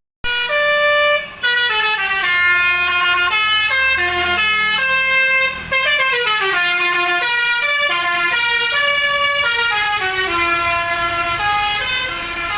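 Bus 'telolet' Basuri musical air horn playing a loud, fast tune of clear stepped notes, one after another, including quick falling runs.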